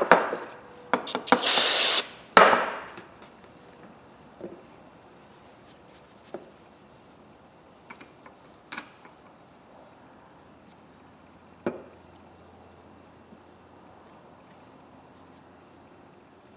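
Hand scrubbing and rubbing at the coated handles of a pair of diagonal cutters: a few loud rubbing strokes in the first couple of seconds, then only occasional light clicks and taps as the pliers are handled.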